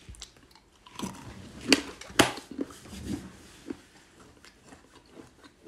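A small packet of spicy nuts being torn open by hand: crinkling and sharp rips, the two loudest about two seconds in, followed by lighter rustling.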